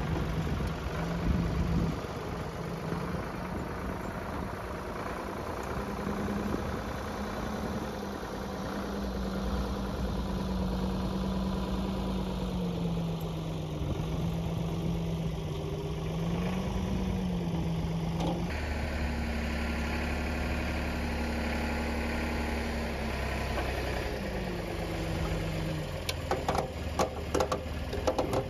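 Ford 555B backhoe loader's diesel engine running while it lifts a scrap tractor hung in chains, its pitch rising and falling as the loader works. A few sharp metal clanks come near the end.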